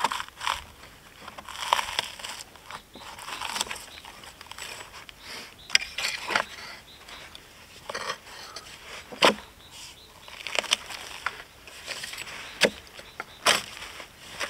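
Hand debarking tool working bark off a robinia (black locust) log: uneven scraping strokes broken by sharp knocks and cracks as bark and small roots are struck and pried loose.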